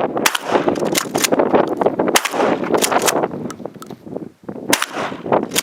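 Winchester Model 1300 12-gauge pump shotgun firing slugs: about three shots roughly two seconds apart, with sharp clacks of the pump action between them. Wind buffets the microphone throughout.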